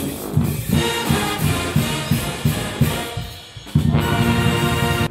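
Upbeat music with brass and drums over a steady low beat; it thins out briefly about three seconds in and comes back in full just before the end.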